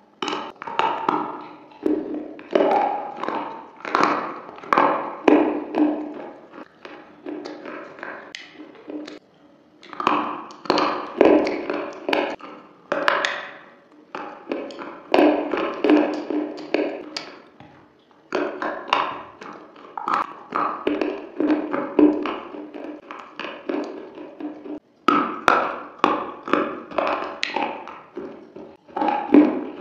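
Pieces of slate being bitten and chewed close up: dense runs of sharp, crackling crunches, broken by a few short pauses.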